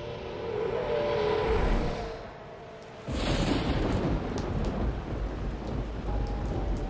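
A swelling hum with steady tones dies away. About three seconds in a thunderclap breaks, followed by steady heavy rain with low rolling thunder.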